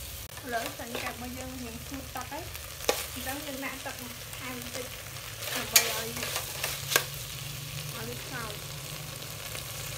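Frog meat sizzling in a stainless steel pot as it is stirred with a metal ladle, cooking down until its juices dry off. The ladle clinks sharply against the pot a few times, loudest about three, six and seven seconds in.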